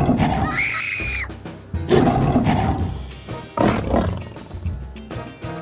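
Lion roar sound effect, three rough roars a second or two apart, over cartoon background music.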